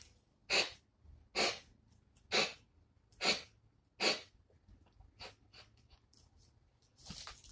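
Blue nose pit bull breathing hard through its nose with its jaws clamped on a rope toy: a row of loud, sharp huffs a little under a second apart, ending about four seconds in.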